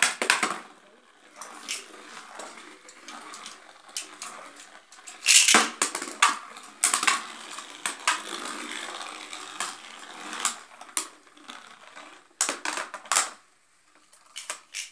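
Two Beyblade spinning tops (Victory Valtryek and Xeno Xcalius) whirring inside a plastic washbasin. They clack sharply against each other and the basin wall, with the loudest hit about five and a half seconds in and a run of hits around twelve to thirteen seconds. The sound is quieter near the end.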